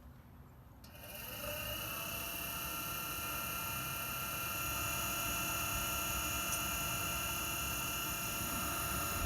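RV furnace blower motor kicking on about a second in, rising quickly in pitch as it spins up, then running steadily with a high whine that grows a little louder a few seconds later, before the burner lights.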